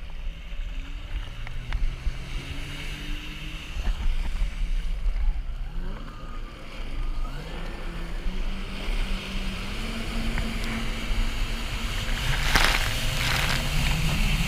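Yamaha WaveRunner personal watercraft engine running, its pitch sagging and climbing as the throttle is worked, then held higher as it gets under way. About twelve seconds in, water spray hisses and splashes loudly as the craft cuts a hard turn through its wake.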